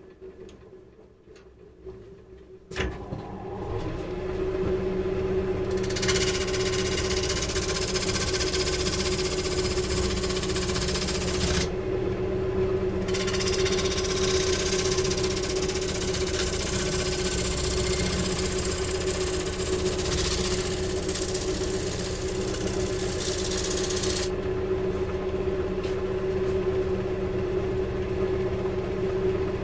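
An electric woodworking machine starts about three seconds in and runs with a steady hum. From about six seconds a loud rushing hiss joins it. The hiss drops out briefly near twelve seconds and stops a few seconds before the end, while the motor keeps running.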